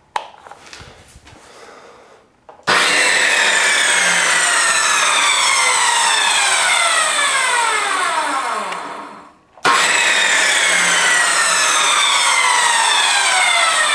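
Circular saw mounted under a table as a table saw, switched on twice: each time it starts suddenly at full speed and then its pitch falls steadily as the blade slows, the first run dying away about nine seconds in before the second start.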